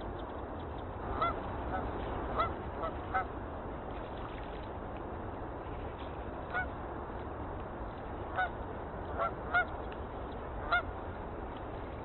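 Eurasian coots calling on open water: about ten short, sharp single-note calls, a quick cluster in the first few seconds, a pause, then more spaced calls later, over a steady background hiss.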